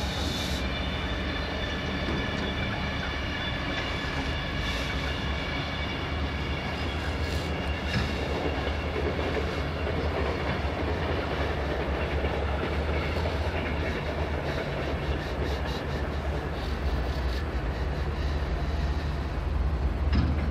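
Kobelko excavator's diesel engine running steadily, a continuous low rumble with a faint high whine over it.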